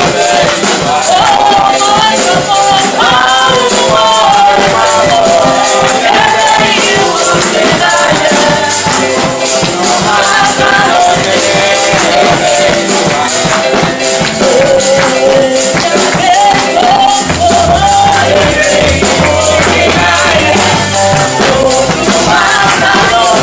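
A woman's amplified voice leading a worship song through a microphone over live church music with steady shaker-like percussion; a low bass line comes in about three-quarters of the way through.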